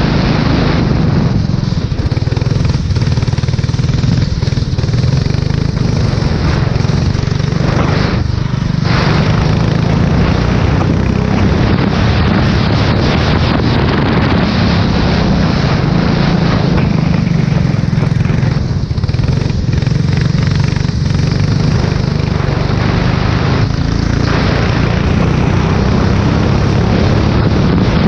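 Formula 4 race car engine running hard at speed, mixed with heavy wind rush on the microphone, on a wet track. The higher part of the sound eases off briefly about 8 seconds in, again around 19 seconds and about 24 seconds in.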